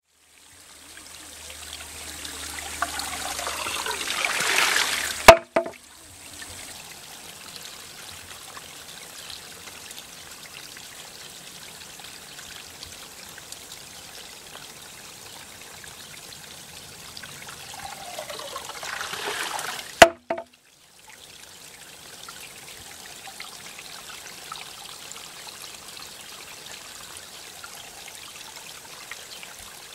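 Shishi-odoshi bamboo deer-scarer over a steady trickle of water: twice, about fifteen seconds apart, the water sound swells with a rising gurgle as the tube fills, then the bamboo tips and strikes the stone with a sharp clack, followed at once by a fainter second knock.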